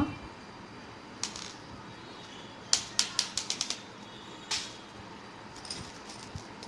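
Small beads clicking against one another and the glass bowl as they are picked up and strung by hand. There is a single click about a second in, a quick run of about seven clicks near the middle, one more a little later and a few faint ones near the end.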